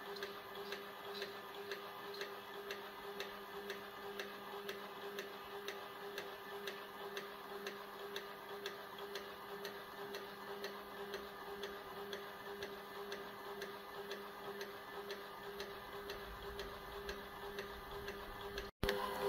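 Kodak Reels film scanner advancing Super 8 film frame by frame: a regular mechanical clicking about twice a second over a steady motor hum. It cuts off abruptly near the end.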